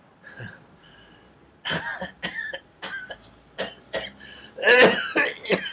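A dying old man's fit of harsh coughing. It starts about a second and a half in as a run of short coughs, and the loudest, hoarsest cough comes near the end.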